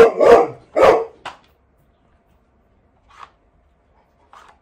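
Bernese Mountain Dog puppy barking, a quick run of loud barks that stops about a second and a half in; the puppy is unhappy at being kept out while the older dog works the puzzle toy.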